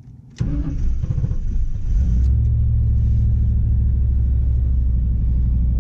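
Chevrolet Camaro engine starting about half a second in, then settling into a steady, loud, low rumble from inside the cabin.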